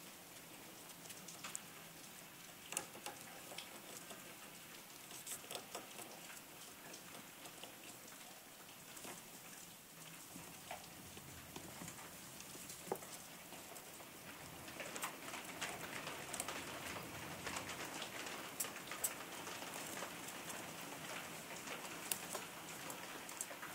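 Baby squirrels scrabbling and scampering as they play: faint scattered clicks and scratches of small claws, busier with more rustling for a few seconds past the middle.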